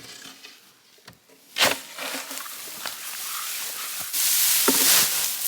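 Dry hay rustling and crunching as it is loaded and pressed into a hand-operated plunger hay baler: a sharp crunch about one and a half seconds in, then louder, steady rustling from about four seconds on.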